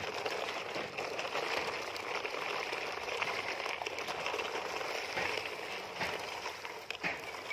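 Plastic wheels of toy dump trucks rolling over gravel: a steady crackling crunch of small stones.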